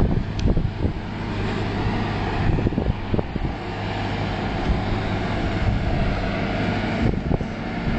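Heavy haulage trucks' diesel engines running with a steady low rumble. Wind and handling noise knock on the phone's microphone throughout.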